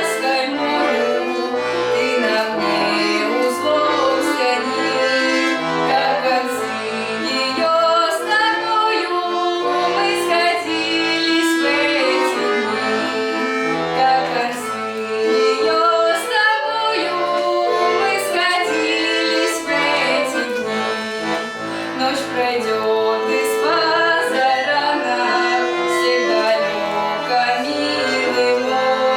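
Accordion playing an instrumental interlude of a Russian Gypsy romance: a flowing melody over chords.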